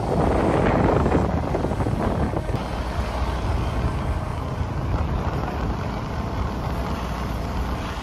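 Steady noise of a vehicle on the move: wind rushing over the microphone over a low rumble of engine and road, loudest in the first second or so.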